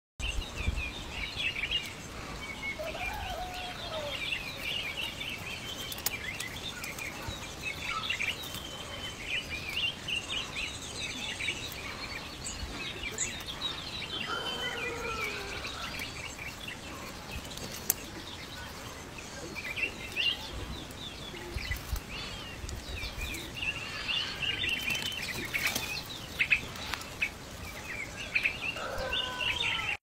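Birds chirping and calling: a steady run of many short, high chirps, with a few lower sliding calls about three to four seconds in, around fifteen seconds and again near the end.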